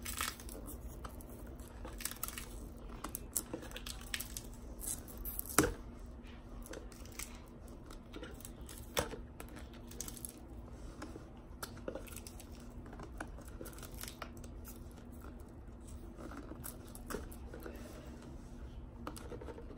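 Faint tearing and scratching of packing tape being picked at and peeled off the end of a cardboard mailing tube, with scattered small clicks and one sharper tap about five and a half seconds in. A faint steady hum sits underneath.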